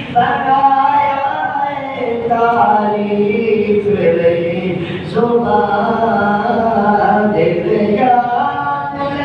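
A man singing an unaccompanied Islamic devotional chant into a microphone, in long held, wavering notes with short breaths between phrases.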